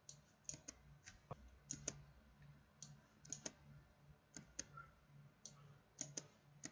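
Computer mouse buttons and keyboard keys clicking as gaps in a line of text are selected and deleted. The clicks are quiet and sharp, many of them in quick pairs.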